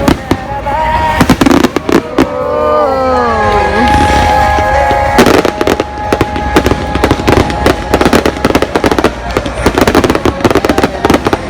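Aerial fireworks bursting and crackling in a dense run of sharp cracks, thickest from about halfway through, with music playing alongside.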